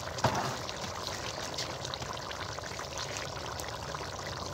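Chickpea curry bubbling at a boil in a large open pot as its liquid cooks down, a steady seething with scattered small pops and one sharper click about a quarter second in.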